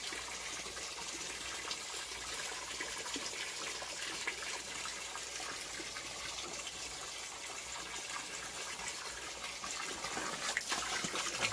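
Water from a garden hose pouring steadily into a plastic bucket of sugar, a continuous gushing splash as the bucket fills for sugar-syrup bee feed. It grows a little louder near the end.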